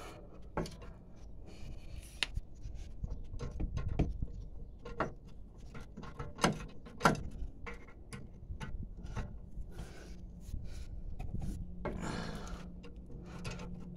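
Scattered metallic clicks and knocks, with rubbing and scraping between them, from a breaker bar, swivel extension and 21 mm socket working the rear caliper bracket bolts loose. The two sharpest knocks come about halfway through, and a low steady hum comes in near the end.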